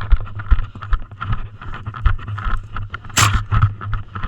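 Handling and movement noise on a body-worn action camera: irregular knocks and thumps of steps and gear over a steady low rumble, with one short, sharp hissing burst about three seconds in.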